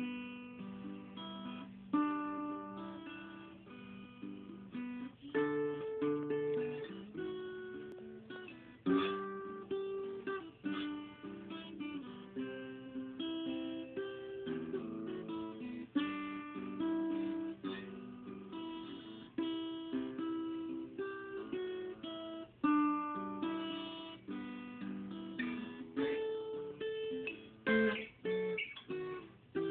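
An acoustic guitar being played: a continuous run of picked notes and strummed chords, each ringing and fading before the next.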